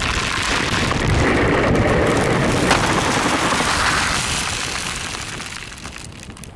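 Dust devil wind blasting across the microphone: a loud, rushing buffet that builds about a second in, with a single knock about three seconds in, then dies away toward the end.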